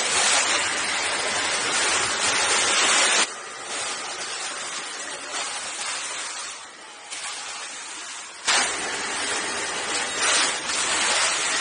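Steady hissing noise of factory machinery. It drops abruptly to a quieter, duller level about three seconds in and comes back louder and brighter about eight and a half seconds in.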